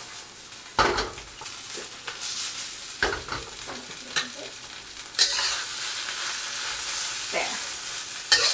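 Rice noodles and egg sizzling in a hot wok while metal tongs toss and mix them, knocking and scraping against the pan a few times. The sizzle grows louder about five seconds in.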